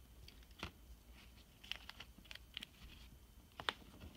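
Scattered light clicks and taps as hands shift trading cards and the card box on a wooden tabletop, with a cluster in the middle and the sharpest click near the end.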